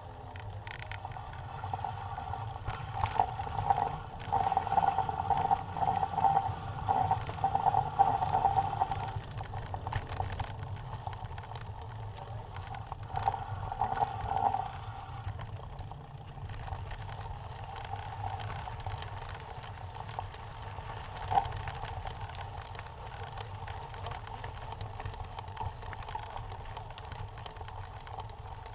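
Mountain bike riding over rough concrete and dirt, heard from the bike itself: a steady low rumble of tyres and frame, with a louder rattling whir that comes and goes in the first third and again briefly near halfway, and a single knock about two-thirds through.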